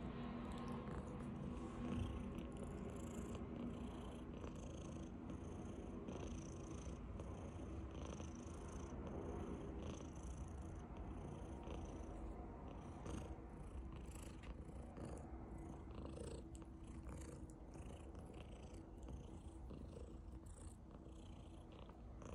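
Domestic tabby cat purring, a steady low rumble that grows gradually quieter toward the end.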